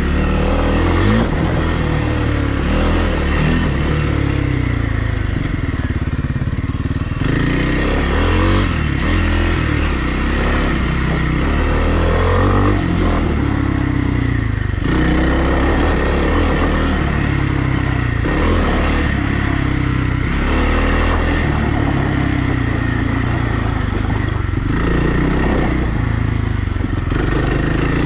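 Kawasaki KLX300R dirt bike's single-cylinder four-stroke engine running under way on a trail, revving up and down, its pitch rising and falling every few seconds.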